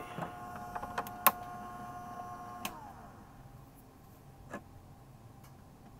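Small motor of a homemade rotisserie UV curing chamber running with a steady whine, which winds down in pitch and stops a little before halfway through. Several sharp clicks from the chamber door being opened come over it, the loudest about a second in, and a fainter click follows later.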